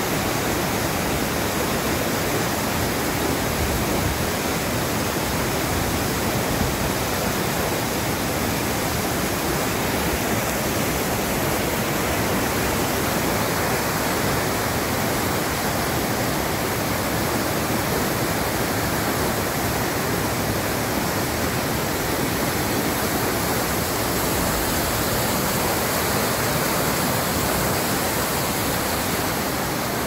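Whitewater rushing through a dam spillway and churning down the river below it: a loud, steady rush of water that holds without a break.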